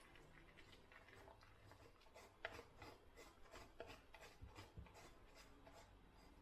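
Faint rubbing or scraping strokes, about five a second, from about two seconds in until near the end.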